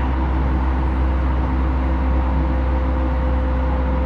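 Running noise of a Hokuso 7500 series electric train, heard from inside the car: a steady deep rumble of wheels on rail at cruising speed. A steady whine comes in about halfway.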